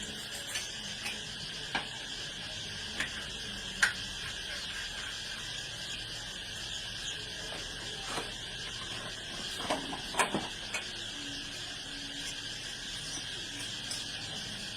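Steady chorus of crickets or other insects, with a handful of short sharp clicks and knocks scattered over it, the loudest about four seconds in and around ten seconds in.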